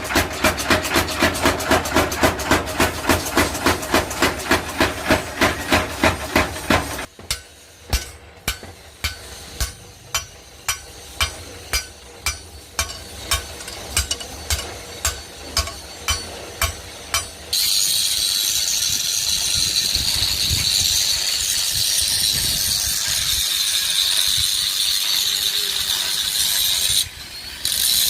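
Hammer blows on iron being forged into a crowbar: quick, even strikes about three a second, slowing to about two a second after about seven seconds. At about 17 seconds the strikes stop and a steady hiss takes over, dropping out briefly near the end.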